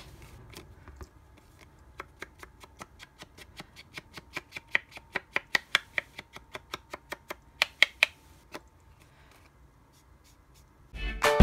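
Foam sponge dauber dabbing along the edges of a cardstock panel: a run of quick, light taps, about four a second, that stops a couple of seconds before music starts near the end.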